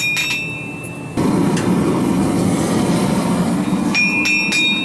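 Hand hammer blows on hot steel at an anvil, each strike leaving a high ringing tone. The blows stop about a second in, giving way to a steady rushing roar for nearly three seconds. The hammering and ringing then resume near the end.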